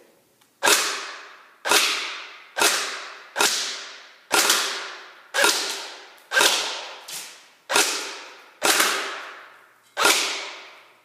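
Echo1 AK-47 airsoft electric rifle with a suppressor, fired in single shots at a target bag: about a dozen sharp cracks, roughly one a second, each trailing off before the next.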